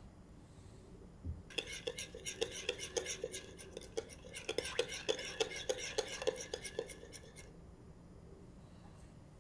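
A cooking utensil stirring and clattering against cookware, rhythmically about four strokes a second for about six seconds.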